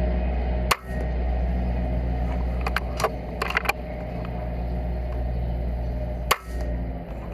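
Steady low mechanical hum of a running engine or machine. Two sharp clicks come about a second in and near the end, each followed by a brief dip, with a few lighter clicks in between.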